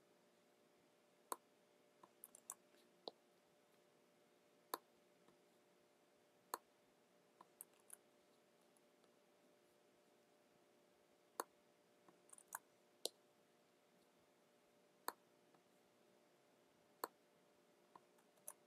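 Faint, sharp computer mouse and keyboard clicks, about fifteen scattered singly and in small clusters, over a faint steady hum: text being selected, copied and pasted.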